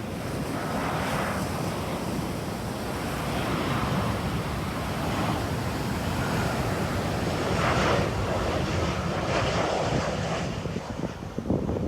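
Ocean surf breaking and washing up the beach in a steady rush, swelling a few times, with wind buffeting the microphone.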